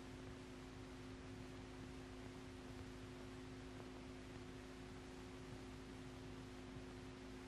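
Faint steady hum: two constant tones over a low hiss, with nothing else sounding.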